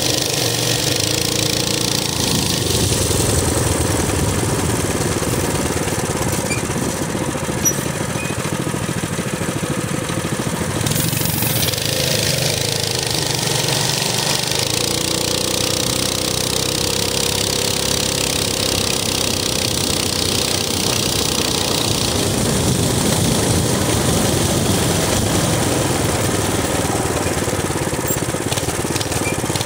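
Minibike's small engine running steadily while riding, its pitch rising and falling with the throttle, with wind noise over it.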